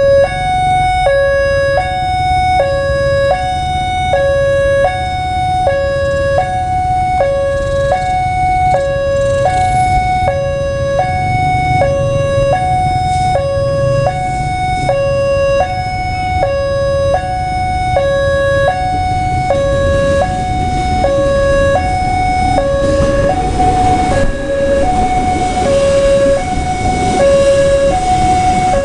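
Railway level-crossing warning alarm sounding steadily, an electronic signal alternating between a low and a high tone about every half second. In the last several seconds the rumble of a diesel-hauled passenger train passing close by grows under it.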